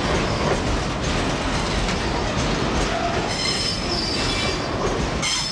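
Double-decker car carrier freight wagons rolling past close by with a steady rumble of wheels on rail. A high-pitched wheel squeal rises about three seconds in and comes again briefly near the end.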